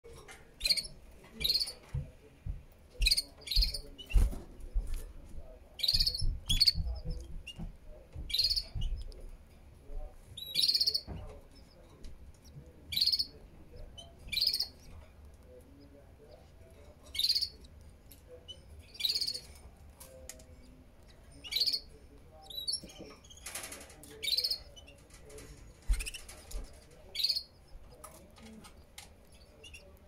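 Canary chirping: short high chirps repeated about every second or two. Low bumps and rustling of the nest in the first ten seconds or so.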